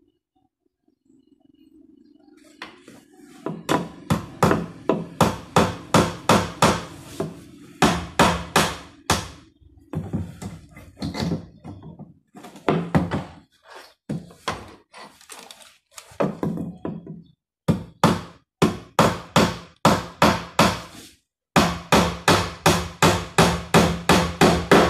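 Hammer driving nails into a plywood shelf frame: runs of sharp strikes, about two or three a second with short pauses between runs, starting about three seconds in.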